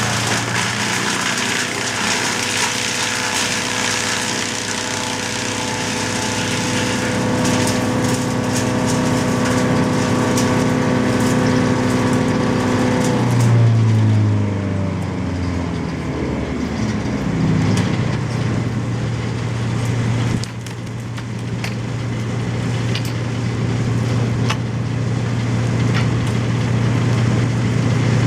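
Small petrol engine of tree-felling equipment running steadily at a held speed. About halfway through it slows briefly and comes back up to speed, with scattered sharp cracks and clicks over it.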